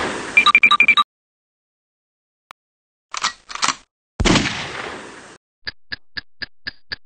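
Sharp bangs with a long echoing decay: one fading out at the start, mixed with a few quick bright beeps, and another about four seconds in. A pair of short clicks comes just before the second bang, and an even ticking of about four a second runs near the end.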